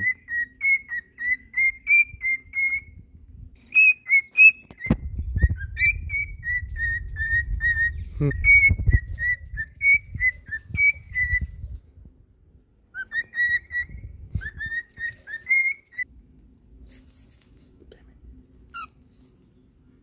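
Male cockatiel whistling its courtship song: a long string of short, warbling whistled notes, which breaks off and then comes back briefly in a second, shorter run. A low rumble of handling on the microphone sits under the middle of the song.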